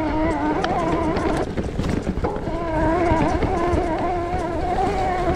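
Mountain-bike ride noise: a steady rumble of tyres on the trail and wind on the microphone, with a wavering pitched tone over it that breaks off briefly and then returns.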